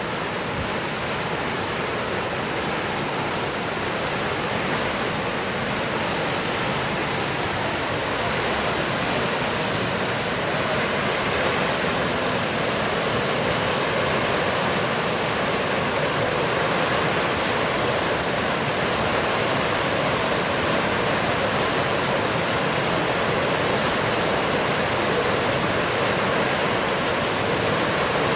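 Storm floodwater rushing over and through a submerged footbridge, a steady, continuous churning of fast water that grows a little louder about a third of the way in.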